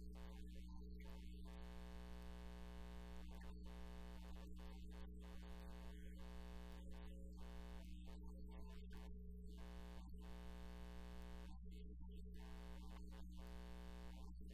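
A steady low hum with a stack of steady higher overtones.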